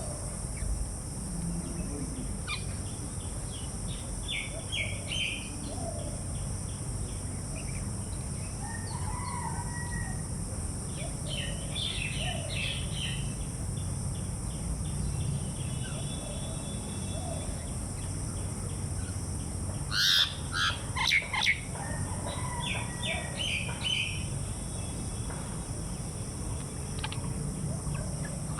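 A rooster crowing loudly about twenty seconds in, over scattered chirping of small birds and a steady low background rumble.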